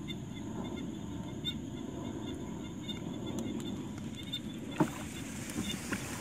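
Wooden rowboat being paddled through marsh water: soft water sounds from the paddle over a steady low rumble, with a few short knocks about five seconds in.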